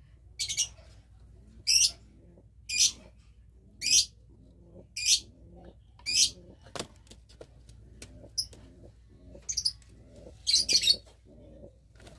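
Domestic pigeons cooing in courtship, a soft wavering low coo, with short sharp hissy sounds about once a second, the loudest of them near the end.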